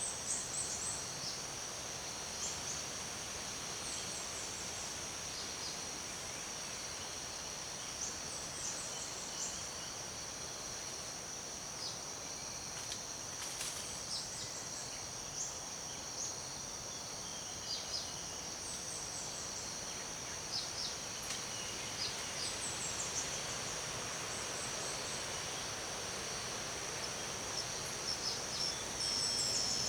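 Tropical rainforest ambience: a steady high-pitched insect drone, with scattered short bird chirps and quick descending trills over an even background hiss.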